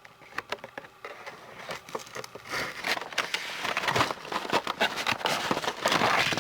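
Cardboard box and plastic packaging being handled and pulled apart to free a toy train: a run of clicks, rustling and crinkling that grows denser and louder in the second half.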